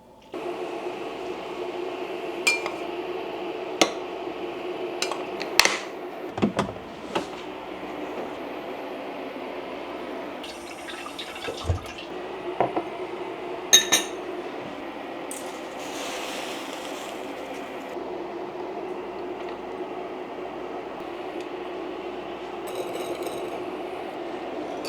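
Kitchen tap water running steadily, with scattered sharp clinks of glass and dishes.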